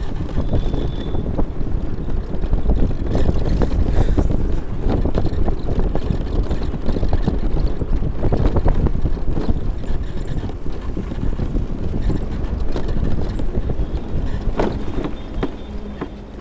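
Heavy wind buffeting the microphone: a loud, dense rumble with scattered knocks and crackles, easing off near the end.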